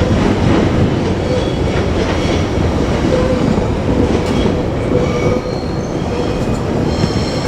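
JR Kyushu 817 series electric multiple unit, two sets coupled, running past with a steady rumble of wheels on rail.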